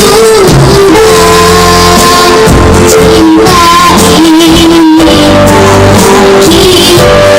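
A child singing solo over loud backing music, holding long notes that bend and slide in pitch.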